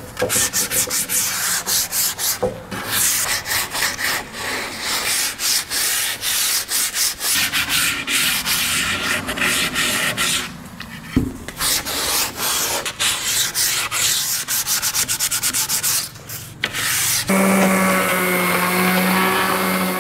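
Sandpaper, 120 grit, rubbed by hand in quick strokes along the edge of a cherry bow rocker to ease the edge over. About 17 seconds in, an electric palm sander starts and runs on the edge with a steady motor tone.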